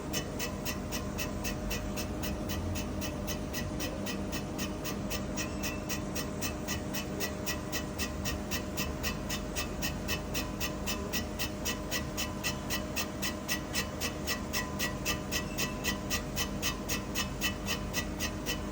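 Shop machine running with a steady hum and a regular ticking about four times a second.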